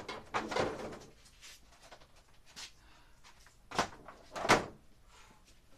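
Things being handled and set down: a short scraping rustle near the start, then two sharp knocks close together past the middle, the second the loudest.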